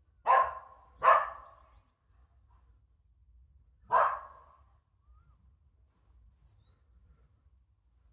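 A dog barking three times: two barks in quick succession, then a single bark about three seconds later.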